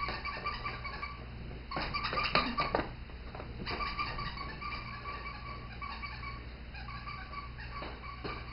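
Squeaky toy squeaked over and over in quick runs, loudest about two seconds in, with footsteps knocking on a hardwood floor.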